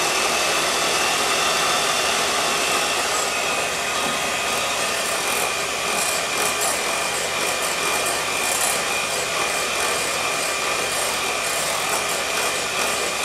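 Electric hand mixer running steadily, its beaters whipping boiled potatoes in a glass mixing bowl, with a constant high motor whine.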